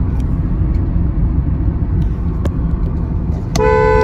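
Steady engine and road noise inside the cabin of a Kia Carens with its 1.5-litre naturally aspirated petrol engine, cruising at about 1,800 rpm. Near the end a car horn sounds loudly for under a second.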